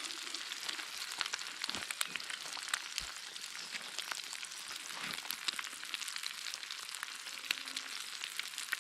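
Eggs with ham and tomatoes frying in a pan, sizzling steadily with many small crackles and pops.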